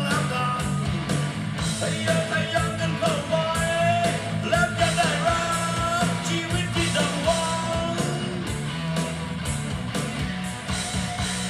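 Vinyl record playing on a turntable: a Thai rock song with singing over guitar and drums.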